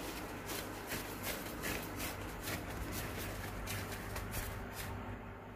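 Hands in thin plastic gloves scooping and pressing spiced mashed-potato mixture into aloo tikki patties: a run of short, irregular crinkles and soft squishes, several a second, stopping shortly before the end.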